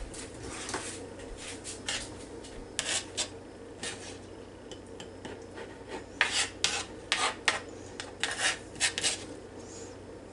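A spoon scraping chopped sweet pickles across a plastic cutting board and knocking against a small glass bowl: a string of short scrapes and clinks, busiest from about six to nine seconds in.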